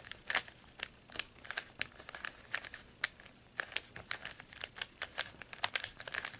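Z-Penrose cube, a plastic 3x3 twisty puzzle, being turned by hand: an irregular run of plastic clicks and clacks, about three a second, as its layers are twisted.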